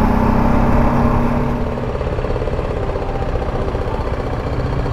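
BMW G310 GS's single-cylinder engine running at low revs, close to idle, as the motorcycle is ridden slowly in to park.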